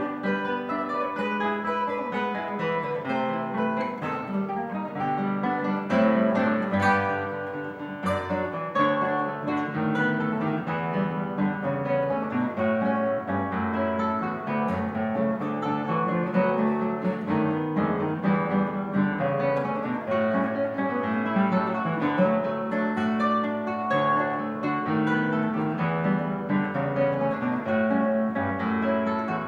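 Acoustic guitar playing a Brazilian choro, a steady run of quick plucked melody notes over a plucked bass line.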